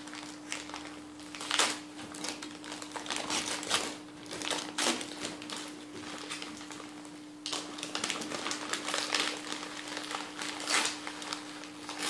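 Shiny silver wrapping paper crinkling and tearing in irregular bursts as a present is unwrapped by hand, over a faint steady hum.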